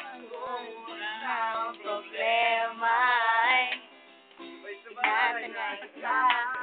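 A voice singing a melody over plucked-string accompaniment, with a thin, narrow sound that lacks bass and treble.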